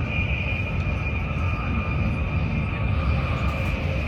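Steady rumble and rush of a fast-moving express train heard from inside the carriage, with a steady high whine over it.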